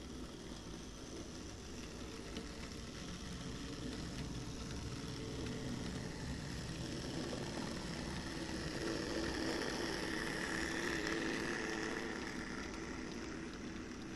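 A pair of N-scale Minitrix V160 diesel locomotives running in double traction: a steady running whir and rumble that grows louder as the train comes up to the track-level camera, loudest about ten to twelve seconds in, then eases as it passes.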